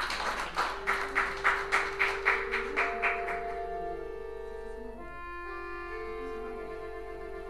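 Button accordion playing long held chords that change about five seconds in. Over its start there is a run of sharp, noisy beats about three a second, which stops about three and a half seconds in.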